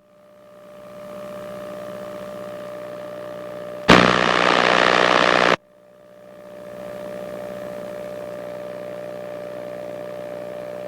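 KR-2S light aircraft's engine drone heard through the intercom audio feed, fading in after a radio call. About four seconds in, a loud burst of hiss cuts in for under two seconds and stops abruptly, typical of a radio squelch break. The drone then fades back in.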